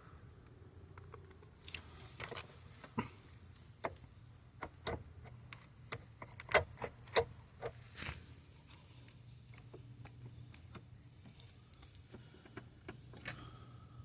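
Irregular clicks and knocks of hand tools and metal parts being handled during car repair work, thick in the first half and sparse later, over a low steady hum.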